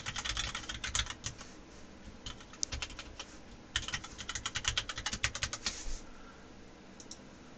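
Typing on a computer keyboard: quick runs of keystrokes with short pauses between, the longest run past the middle, then one last click near the end.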